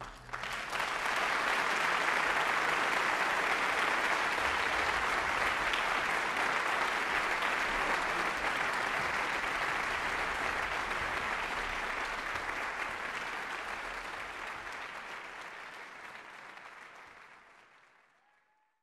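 Audience applauding in a concert hall at the end of an orchestral performance. The clapping starts suddenly about half a second in, holds steady, then fades away near the end.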